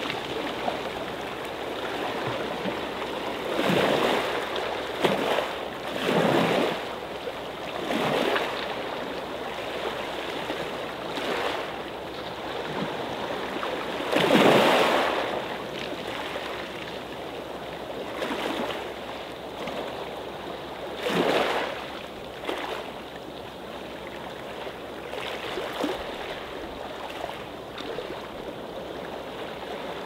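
Small sea waves lapping onto a pebble beach. Each wash swells and fades every few seconds, and the loudest comes about halfway through.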